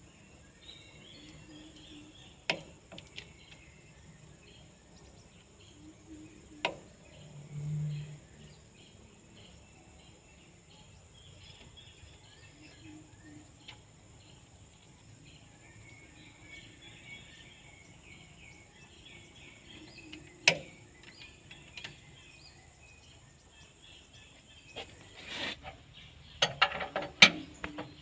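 Hand wrench clicking and clinking against the tractor's steel housing as bolts are worked: a few single sharp clinks, then a quick run of clinks near the end. Insects and birds chirp steadily in the background.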